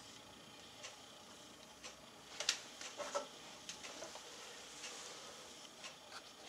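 Knife blade stroked over a leather strop charged with green rouge to polish the edge, a faint light rubbing with a soft tick about once a second. About halfway there are a few louder sharp clicks as the knife is handled.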